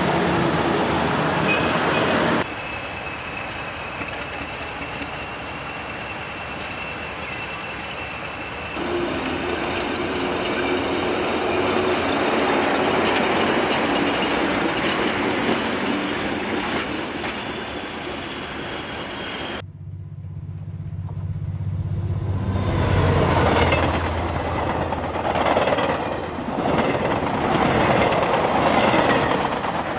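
Road traffic for the first couple of seconds, then a passenger train running along a station platform with its locomotive's engine going. About twenty seconds in the sound cuts to a low engine hum heard from between the rails, which grows into the loud clatter of a train's wheels and undercarriage passing just overhead.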